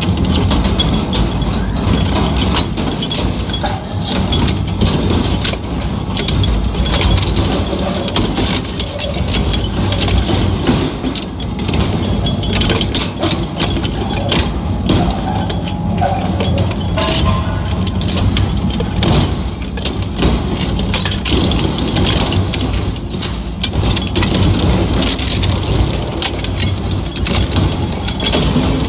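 Heavy crushing machinery running: a steady low engine rumble with constant metallic clanking and rattling.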